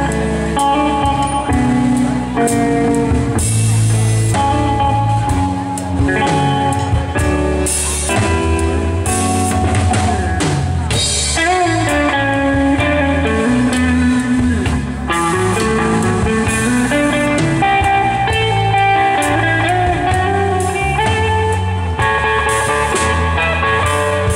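Live instrumental rock band playing: electric guitar over bass guitar and drum kit, amplified through a PA. Around the middle a lead line glides up and down in pitch.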